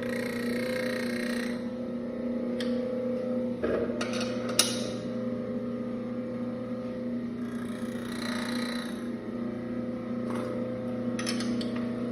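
Electric motor of a small stone bean-and-rice grinding mill running with a steady hum. A few sharp metal clicks come from the adjusting nuts being worked. A brief hissing rasp comes at the start and again about eight seconds in: the grinding stones beginning to rub as the gap between them is closed.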